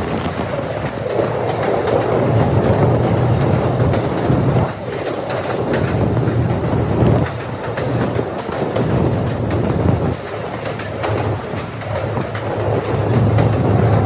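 Passenger train running along the line, heard from an open carriage doorway: a steady rumble of wheels on rails with scattered clicks from the track, swelling and easing every few seconds.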